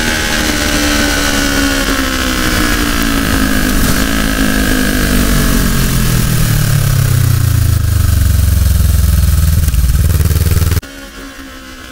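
Sport motorcycle engine heard from an onboard camera, its pitch falling steadily as the bike slows into a curve, with wind rushing over the microphone. Near the end the sound cuts off abruptly to a much quieter engine hum.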